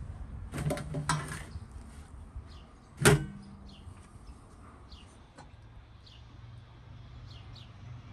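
Small birds chirping over outdoor background noise, with a couple of knocks or clatters in the first second and a half and one loud, sharp knock about three seconds in.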